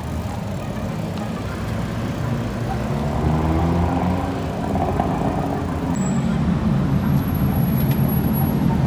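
Road traffic noise: a steady rumble of passing cars, slowly growing louder.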